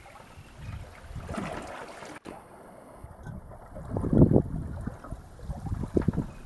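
Wind buffeting the microphone over sea water splashing around a small boat. It comes in uneven gusts, loudest about four seconds in and again around six seconds.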